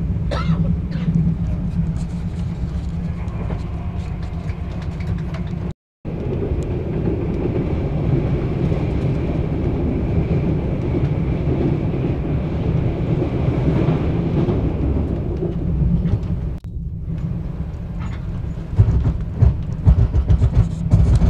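Steady low rumble of an XPT passenger train carriage running along the line, heard from inside the cabin, with a few louder knocks near the end. The sound drops out briefly twice.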